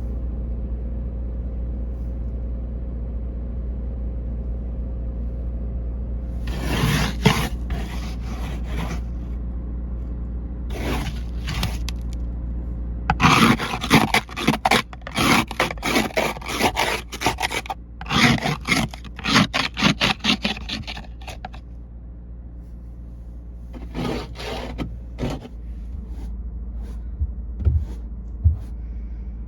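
Snow and ice being scraped in repeated, irregular strokes, coming in bursts that are busiest in the middle, with a few more strokes later on. A steady low rumble runs underneath.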